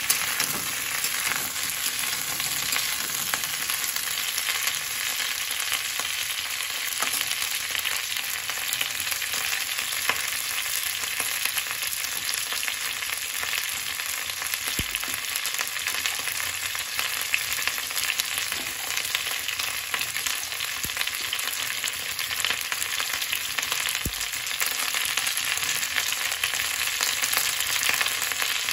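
Cauliflower florets frying in hot oil in a kadhai: a steady, dense sizzle and crackle.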